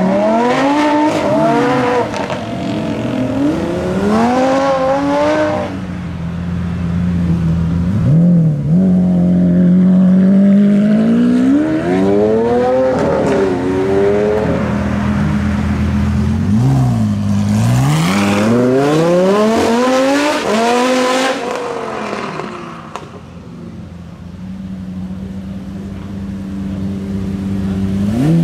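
Supercar engines revving and accelerating hard, the pitch climbing in several rising sweeps as the cars pull away through the gears. Between the runs an engine holds a steady idle.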